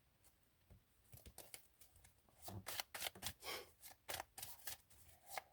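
Tarot cards being shuffled and handled: a quick run of soft card flicks and slaps that starts about a second in and grows busier.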